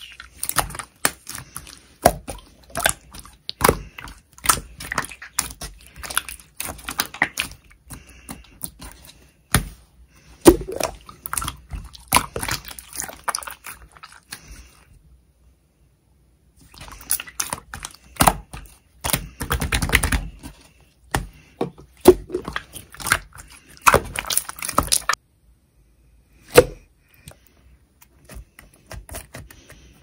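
Clear slime worked by hand, squeezed, stretched and pressed, giving dense runs of wet clicks and small pops. There is a silent break of about two seconds halfway, and only a few scattered clicks near the end.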